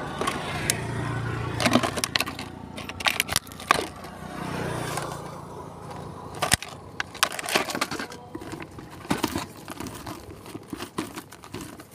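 Handling noise close to the microphone: scattered sharp clicks, crackles and crinkling as hands work with the fishing tackle.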